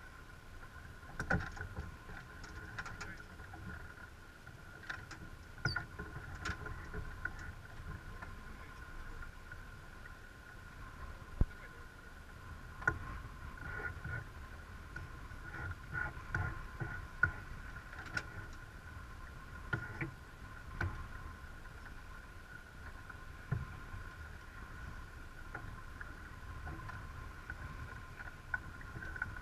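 Sailing yacht under way: a low rush of wind and water over the boat, with scattered clicks and knocks from the crew working the winch and lines. A faint steady two-note hum runs under it all.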